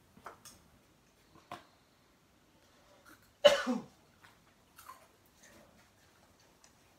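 A person coughs once, sharply, about three and a half seconds in, with a few faint short clicks before and after it.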